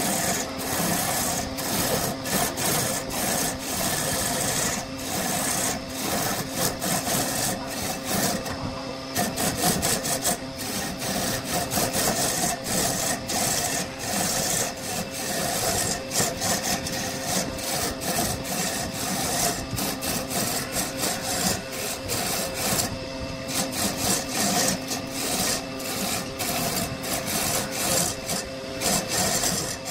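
Wood lathe running with a steady hum while a hand-held turning tool cuts a spinning wood blank: a continuous scraping of shavings coming off, with frequent sharp clicks as the edge bites.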